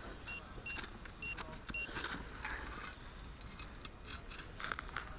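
Metal detector giving four short, high, even-pitched beeps within the first two seconds, over a background of rustling and light scraping.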